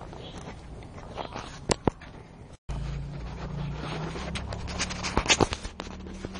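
Puppies scuffling on a tile floor: scattered sharp clicks and scrapes of paws and claws. After a brief dropout partway through, a steady low hum runs underneath.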